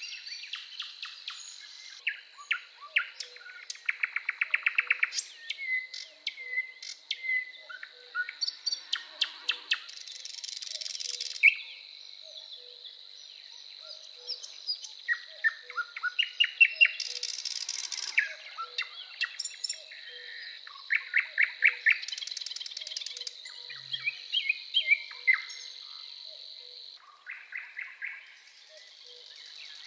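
Nightingale singing in varied phrases: rapid series of loud clicks, whistled notes and buzzy rattles, with short pauses between phrases. Behind it a continuous high trill runs until near the end, and faint low notes repeat about once a second.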